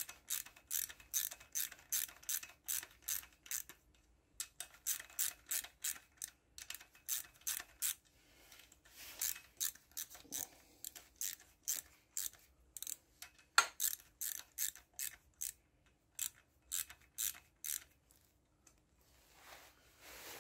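Hand socket ratchet clicking in quick runs, about three or four clicks a second, as camshaft cap bolts are wound down on a Kawasaki Z1100 cylinder head. There are short pauses between runs and one sharper knock about two-thirds of the way through.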